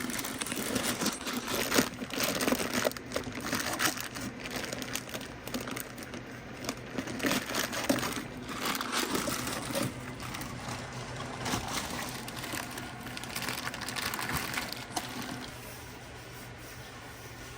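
Irregular crinkling and rustling with scattered light knocks from hands working on parts, over a steady low hum. The handling stops about fifteen seconds in, leaving only the hum.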